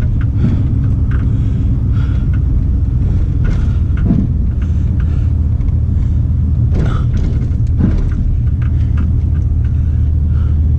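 Pickup truck driving, heard from inside the cab: a steady low engine and road drone, with a few faint knocks.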